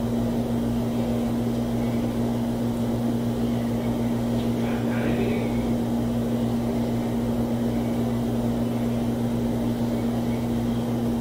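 Steady low electrical hum of two constant tones under an even hiss, unchanging throughout.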